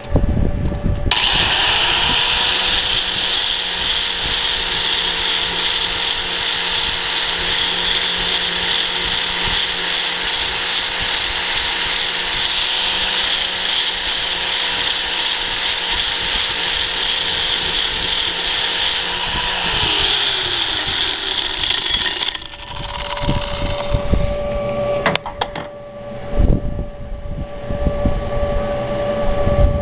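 Drill Master 4-1/2 inch angle grinder with a 120-grit flap disc running at steady speed and sanding paint off a steel cylinder, a loud even grinding hiss over the motor's whine. About 20 seconds in it is switched off and the whine falls as the disc winds down, followed by a few knocks from handling.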